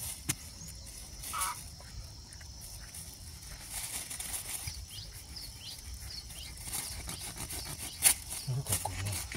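A sharp knock about eight seconds in as a machete blade is brought down to chop through a green snake hanging from a rooster's beak, amid scattered small handling clicks and rustles. A steady high insect chirping runs behind.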